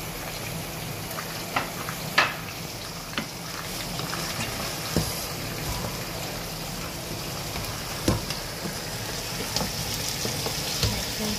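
Mutton pieces and ground spices frying in a non-stick wok with a steady sizzle, while a wooden spatula stirs and scrapes them, knocking sharply against the pan a few times, loudest about two seconds in.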